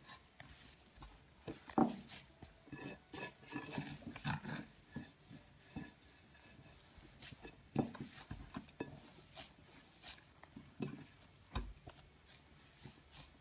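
Hands pressing and gathering a crumbly dough of crushed roasted peanuts, butter and flour in a glazed clay dish: faint, irregular rubbing and soft knocks of fingers against the dish.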